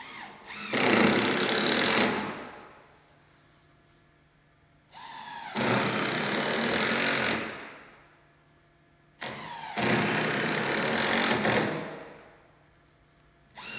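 A power drill driving screws through the gazebo baseboards into the posts, in three runs of about two to three seconds each. The motor rises in pitch as it spins up and dies away as each screw is set.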